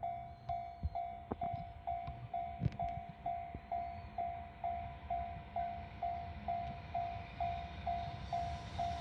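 Japanese railway level-crossing warning bell ringing, one electronic tone struck about twice a second, over a low rumble with a couple of thumps in the first few seconds. The noise of the approaching freight train builds near the end.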